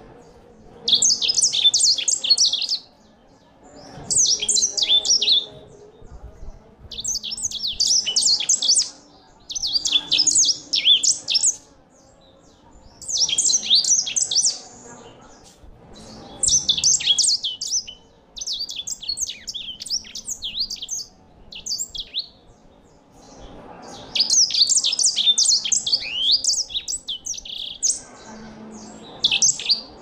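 Caged grey singing finch (sanger) singing: rapid, high-pitched twittering song phrases, each one to two seconds long, repeated about a dozen times with short pauses between them.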